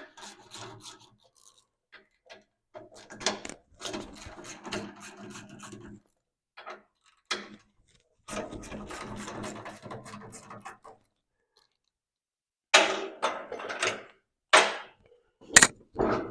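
Ratchet wrench working the bolts of a receiver hitch vise mount, with stretches of rubbing and clicking. Near the end come several loud clunks as the heavy vise is handled.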